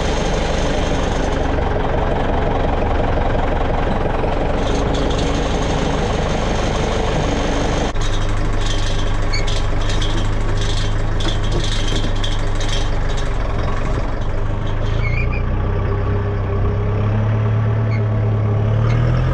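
Farm tractor engine and a skid steer loader running steadily. About eight seconds in, the sound changes to a tractor engine heard from inside the cab as a steady low hum, with a run of light clicks for several seconds after the change.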